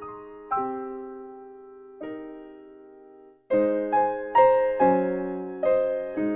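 Background piano music: slow chords that are struck and left to fade, then, about halfway through, a louder and busier run of chords.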